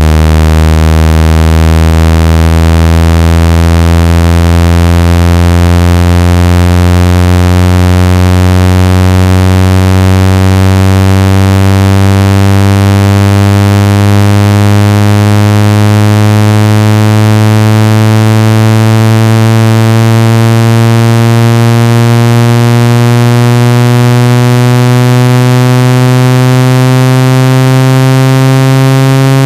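Loud, buzzy low synthesized tone with many overtones, slowly rising in pitch: a speaker water-ejection tone meant to vibrate water out of a phone speaker or earpiece.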